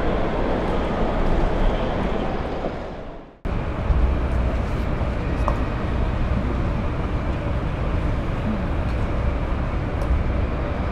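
Train station ambience. A busy concourse hubbub fades out about three seconds in, then a platform recording begins: a steady low rumble under a general murmur of people and movement, with a few faint clicks.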